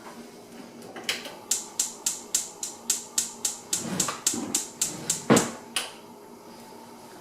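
Gas stove's spark igniter clicking rapidly, about three to four clicks a second for roughly five seconds, with one heavier knock near the end of the clicking.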